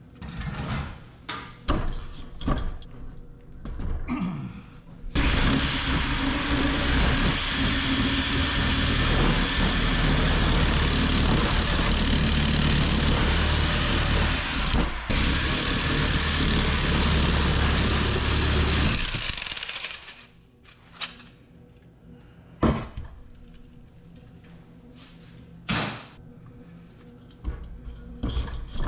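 A power tool runs with a high whine for about fourteen seconds, stopping for a moment and restarting partway through, with metal clanks and knocks before and after as AC unit parts are handled.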